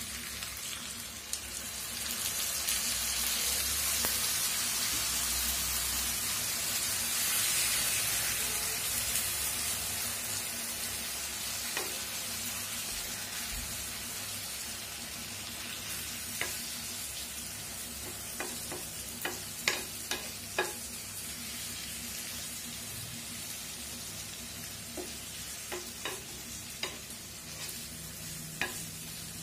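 Marinated meat frying in oil in a pan, sizzling hard after a little rinse water has gone in. The sizzle swells over the first few seconds and then eases to a steadier hiss. From about halfway, a wooden spatula stirring gives scattered knocks and scrapes against the pan.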